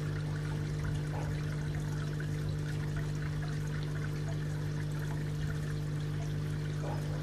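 Water trickling and splashing into a garden koi pond, under a steady low hum.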